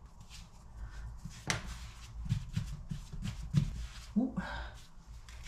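Hands and a dough scraper folding and shaping wet, sticky bread dough on a floured worktop: soft scrapes and dabs, with a sharper click about a second and a half in.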